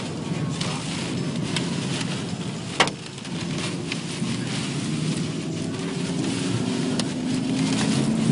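Hail and debris striking a moving car, heard from inside the cabin: scattered sharp hits, one loud crack about three seconds in, over a steady rumble of wind and road noise.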